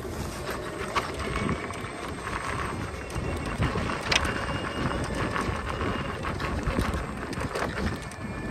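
Riding an electric unicycle along a sandy dirt track: steady wind on the microphone and tyre rumble, with scattered clicks and knocks from stones and bumps.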